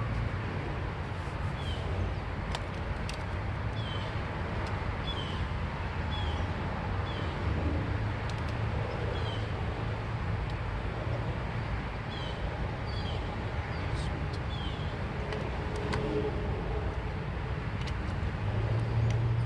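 Steady low vehicle rumble, with short high chirps repeating about once a second and a few light clicks scattered through.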